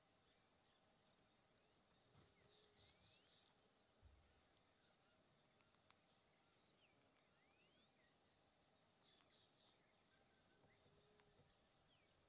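Very faint outdoor ambience: a steady high-pitched insect drone, with a few short rising bird calls and a couple of faint low calls from distant birds.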